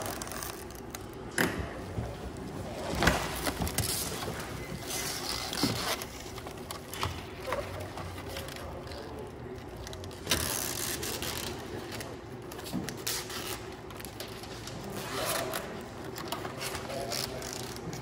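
Adhesive Velcro strapping being unrolled, its plastic backing peeled off and the tape pressed onto the metal plenum frame: scattered taps and knocks against the metal, with short rustling peels of tape, over a faint steady hum.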